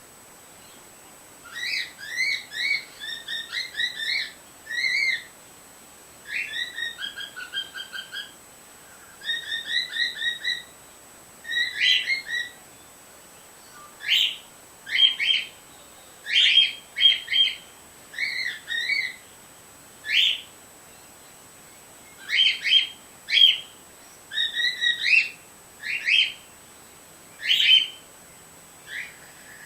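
Cockatiel chirping and whistling in a run of short phrases. The first half is quick trills of repeated notes; from about halfway on come sharper single calls that sweep up and down.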